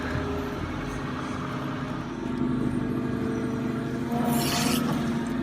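Model excavators working: a steady engine-like hum with tones that shift in pitch, and a short rushing scrape about four seconds in.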